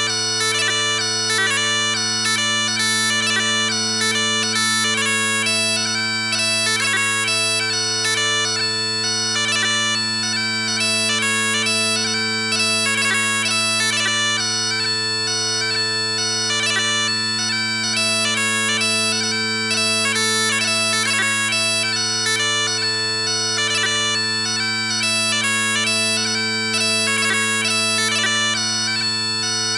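Blair Digital Chanter playing its Highland bagpipe sound set, pitched to 440 Hz: a quick-changing pipe melody over a steady drone.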